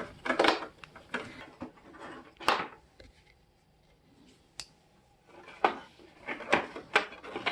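Scattered clicks, knocks and light clattering of plastic fairing parts and hand tools being handled while a motorcycle's front cowl is unscrewed, with a quiet stretch in the middle.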